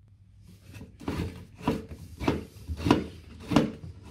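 Plastic toilet waste-outlet pipe knocked and pushed by hand to work it loose. About five sharp knocks come at an even pace, a little over half a second apart, starting about a second in.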